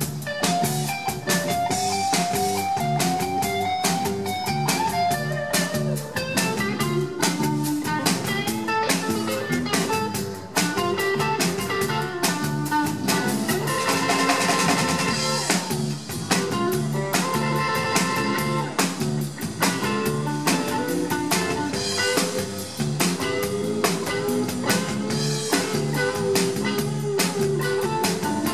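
Live blues band playing an instrumental passage: hollow-body electric guitar playing melodic lines over electric bass and a drum kit, with no singing.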